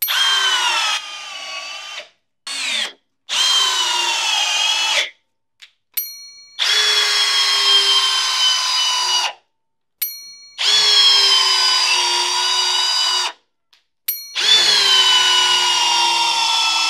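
Hercules cordless hammer drill in drill mode at speed 2, driving long structural screws into wood in several separate runs. The motor whine drops in pitch under load during each run, and each run cuts off abruptly.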